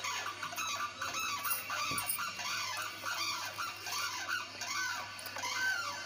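A pair of sarus cranes giving their unison call: a rapid series of trumpeting calls from both birds together, loudest near the end.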